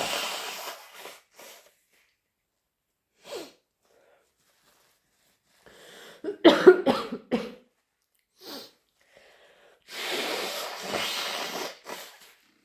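A person in a sneezing fit, sneezing and coughing. The loudest part is a tight cluster of sharp sneezes and coughs about six to seven and a half seconds in. Single short bursts come before and after it, and long noisy breaths come at the start and near the end.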